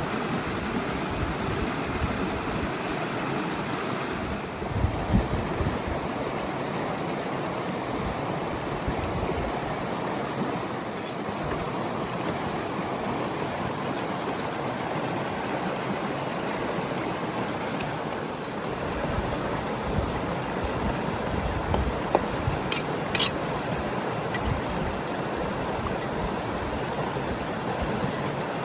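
River water flowing steadily, with a few brief low thumps and faint clicks.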